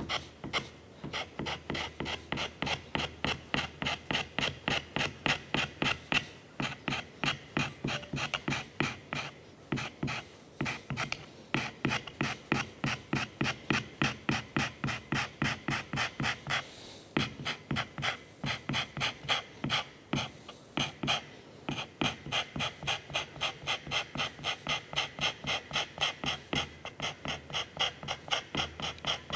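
Hand scraper cutting Turcite wear strip on the underside of a lathe cross slide: quick, even scraping strokes, about three a second, with a few brief pauses. The scraping takes down high spots to get better contact with the scraped saddle.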